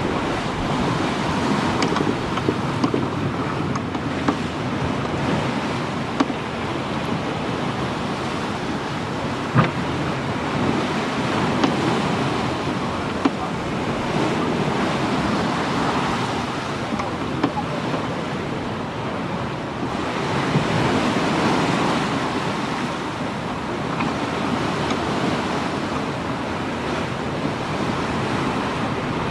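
Sea water washing against the hull of a two-masted schooner, a steady rush that swells and eases every few seconds, with wind on the microphone. A few short sharp knocks stand out, the clearest about ten seconds in.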